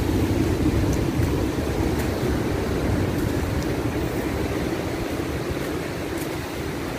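Low, steady roar of heavy surf mixed with strong wind buffeting the microphone, easing slightly toward the end.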